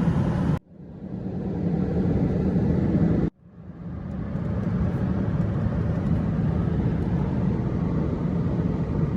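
Steady road and engine rumble of a car driving, heard from inside the car. It cuts out abruptly twice and fades back in each time.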